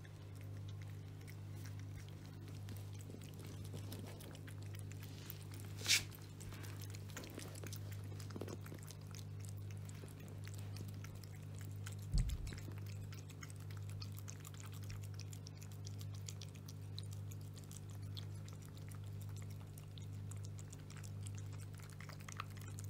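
Two cats chewing wet food from bowls: faint, irregular smacking and clicking over a steady low hum, with a sharp click about six seconds in and a dull thump about twelve seconds in.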